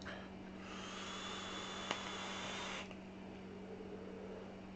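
Sub-ohm vape mod firing dual fused Clapton coils at about 80 watts: a steady hiss of the coil sizzling and air drawn through the atomizer for about two seconds, with one click partway through, then quieter as the vapour is blown out.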